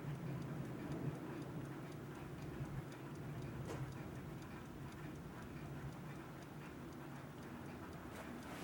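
Seiko Soft & Loud two-jewel hand-wound alarm clock ticking steadily: its mechanical movement is running. Two slightly louder clicks come, one about three and a half seconds in and one near the end.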